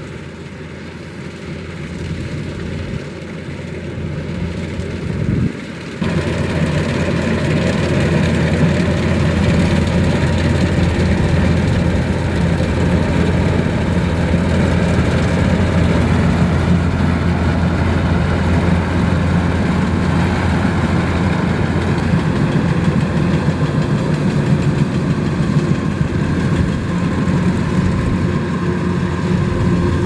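Kubota DC-105X combine harvester's diesel engine running as it cuts rice. It grows louder over the first few seconds as the machine comes toward the microphone, jumps louder about six seconds in, then runs steadily.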